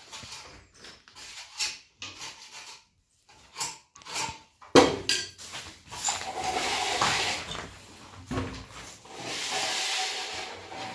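Steel plastering trowel scraping over a plastered wall and tapping on the hawk: short scrapes and knocks, a sharp knock just before five seconds in, then two longer scraping strokes, one around six seconds in and one around nine to ten.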